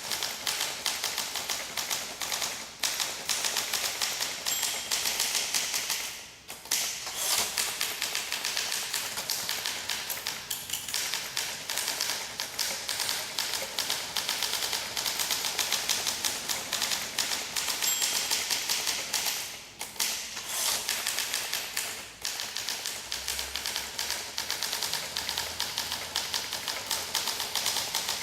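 1958 Olympia SM2 manual portable typewriter being typed on fast and continuously: a steady clatter of key and typebar strikes, broken by a few brief pauses.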